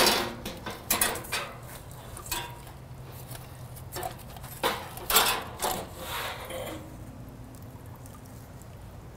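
Metal barbecue spatula and fork scraping and clinking against the wire grill grate inside a Brinkmann smoker as a whole smoked chicken is pried loose and lifted off. There are scattered knocks in the first second or so and again about four to six seconds in, and it goes quieter near the end.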